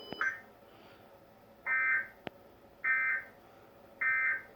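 Emergency Alert System SAME data tones: three short, buzzy bursts of digital code, each about half a second long and about a second apart. This is the end-of-message signal that closes the broadcast tornado warning.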